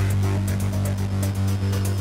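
Electronic background music with a sustained deep bass note and a steady beat.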